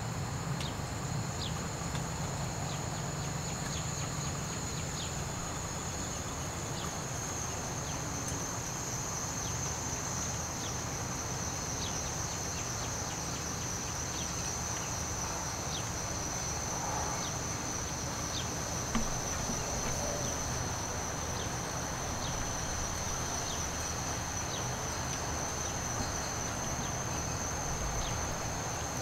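Insect chorus: a steady high-pitched trill that sinks slightly in pitch, with scattered short chirps. Beneath it is a soft, even hiss of light rain and a low rumble of wind.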